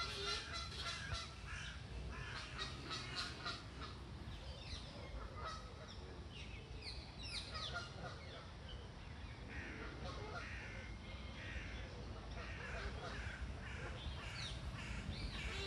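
Canada geese calling with repeated short honks over small birds chirping, and a low rumble of wind or handling noise beneath.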